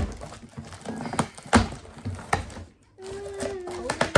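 A cardboard box being set down and handled on the floor, with several sharp thuds and knocks. After a brief break about three seconds in, a steady hum starts and drifts slightly lower in pitch.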